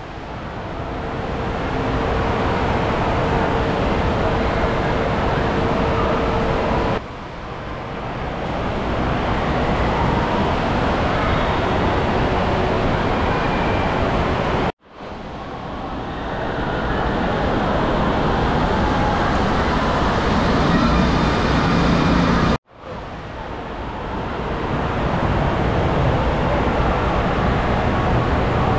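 Indoor water park din: water rushing out of the tube slides and splashing into the pool, with a steady wash of distant voices echoing in a big hall. The din drops out and swells back three times, at about 7, 15 and 23 seconds in.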